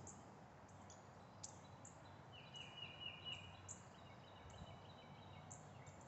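Near silence: faint outdoor ambience with scattered short, high bird chirps and a brief rapid trill about two and a half seconds in.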